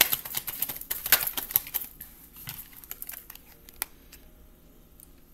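A deck of tarot cards being shuffled by hand: a quick run of sharp card clicks and flutters that thins out after about two seconds to a few scattered clicks.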